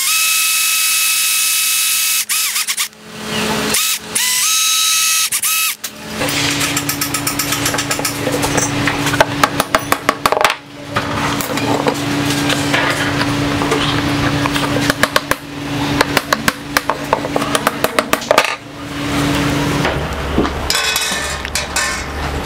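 Electric drill whining as it bores into a wooden dowel, stopping and starting again a few times in the first six seconds. Then a long run of sharp knocks and taps as the wooden handles are worked onto the wire ends of the grill grate.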